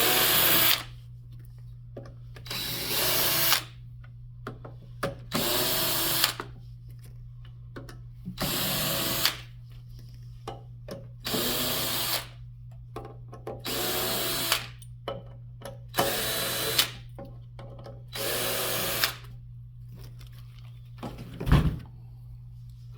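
Power drill run in about eight short bursts, each about a second long and a few seconds apart, backing out the screws of a golf caddy's outer plate. A steady low hum runs underneath, and a single knock comes near the end.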